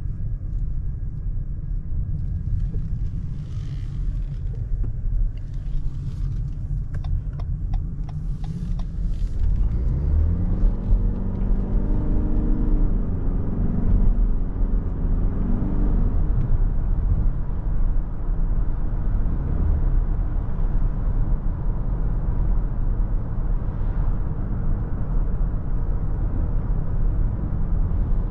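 Inside the cabin of a 2023 Lexus NX: steady road and tyre rumble, with a few light clicks a few seconds in. About ten seconds in the engine note rises in pitch in steps as the car accelerates, then it settles into a steady cruising rumble.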